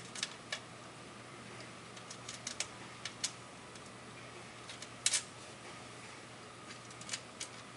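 Scattered small metal clicks and taps, at uneven intervals, as a washer and nut are fitted onto a bolt by hand. The loudest is a quick double click about five seconds in.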